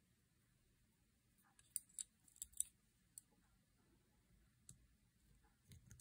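Faint, sharp metallic clicks of a small steel pin and shotgun lock parts being handled and fitted by hand. There is a quick cluster of clicks about two seconds in, then a few single ticks later on.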